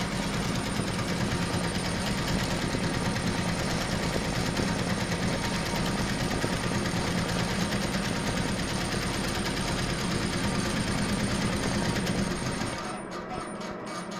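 HSW 12-needle embroidery machine stitching at high speed, a steady fast rattle with a thin high whine, stopping about a second before the end as the design is finished, followed by a few short clicks.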